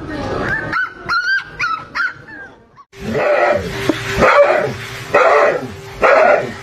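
A dog whining in high, wavering yips, then giving four loud, drawn-out barks about a second apart.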